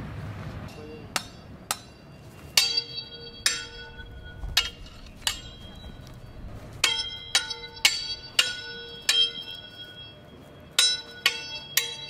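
Steel swords clashing in a medieval fencing bout: about fifteen sharp strikes in quick runs with short pauses, each blade contact ringing on like a bell.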